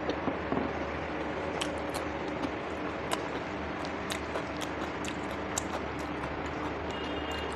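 Eating sounds: short mouth clicks and smacks of chewing at irregular intervals, over a steady background hum.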